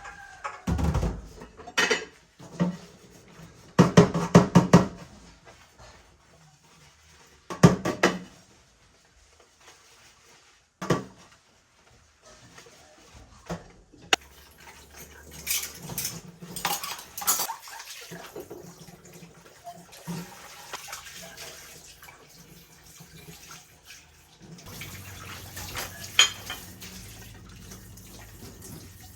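Dishes and cutlery clattering as they are handled at a kitchen sink, with several loud knocks in the first dozen seconds. Later a tap runs into the sink, turning to a steady flow of water near the end.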